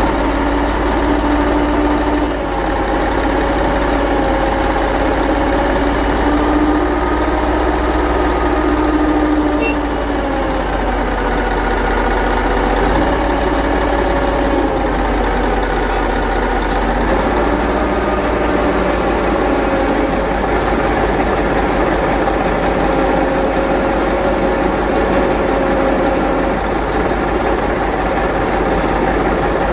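Large vehicle engine running steadily at low revs, its hum drifting slightly up and down in pitch, over a deep rumble.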